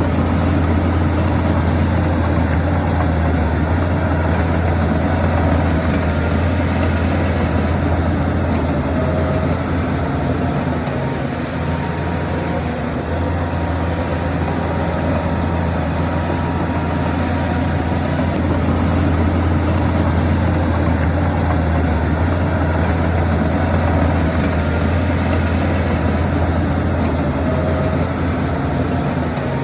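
Heavy diesel earthmoving machinery running steadily with a deep, continuous engine drone, easing off slightly now and then.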